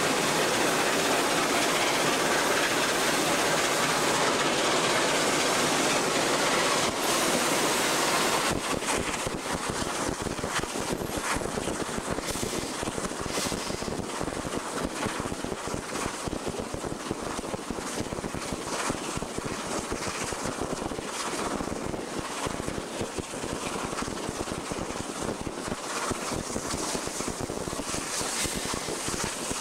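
Norfolk & Western Class J 611, a 4-8-4 steam locomotive, running with its train. A steady loud rushing hiss stops abruptly about eight and a half seconds in. After that the running noise goes on with a rapid, uneven clatter.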